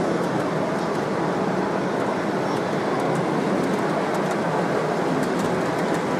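Steady, even background noise with faint scattered clicks while an electric model train with passenger coaches runs past on the layout.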